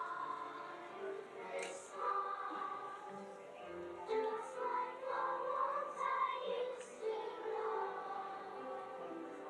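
A children's choir singing, holding sustained notes, with a few sharp hissing consonants cutting through.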